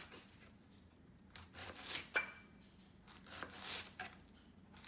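Chef's knife slicing thin shreds through half a head of red cabbage, several crisp crunching cuts down onto a cutting board with short pauses between them.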